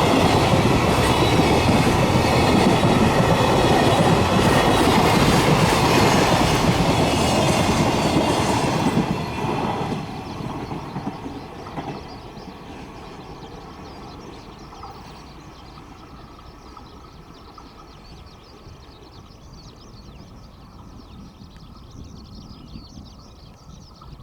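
A train passing close by on the rails. It is loud for roughly the first nine seconds, then dies away quickly, leaving a much quieter steady background.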